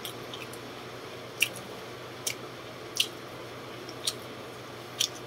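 A person chewing and smacking their lips while eating fish by hand: five short, sharp wet smacks about a second apart, over a steady low hum.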